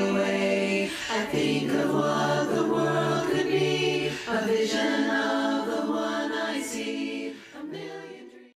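Women's a cappella chorus singing held chords that change every second or so, fading out near the end.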